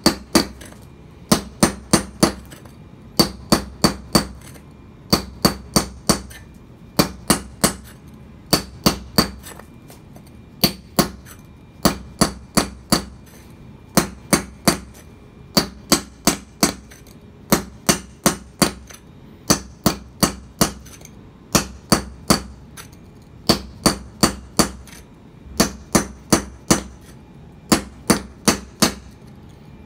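Hammer striking a mason's chisel held on a concrete paver block, scoring the block to cut it. The blows come in quick runs of four to six, a run about every two seconds, each blow a sharp metallic ring.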